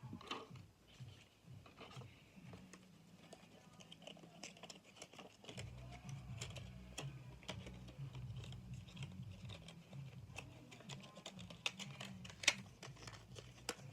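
Faint, irregular small clicks and taps of hands handling small objects and packaging at close range, with one sharper click near the end and a low hum from about five seconds in.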